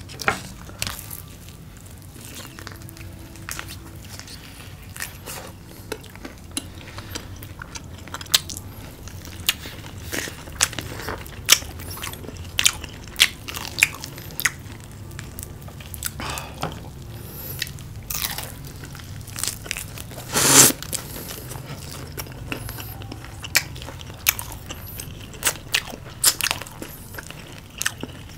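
Two people biting and chewing crisp battered fried chicken and vegetables: many sharp crunches of fried batter, one much louder about two-thirds of the way in. A low steady hum runs underneath.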